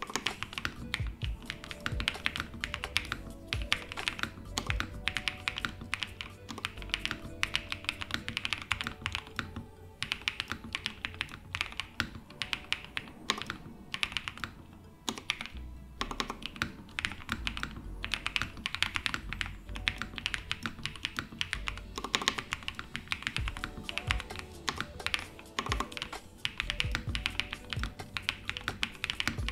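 Fast, continuous typing on a Matrix AbelX EVA-08 mechanical keyboard with lubed JWK Peach Bloom switches, a polycarbonate half plate and CRP R4 keycaps: many keystrokes a second with a few brief pauses. Background music plays underneath.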